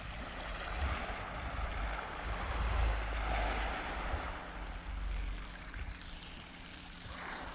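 Gusting wind on the microphone, a low rumble that swells and eases, over a steady wash of small waves on a shingle beach.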